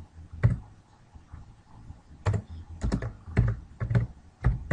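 Computer keyboard being typed on: single, irregular keystrokes, sparse at first and then coming in a quicker run of several keys.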